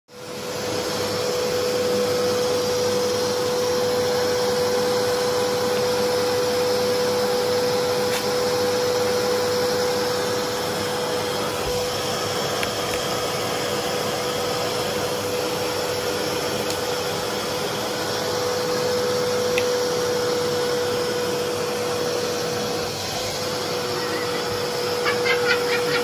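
Vacuum cleaner running steadily: an even rush of air with a constant mid-pitched whine from the motor.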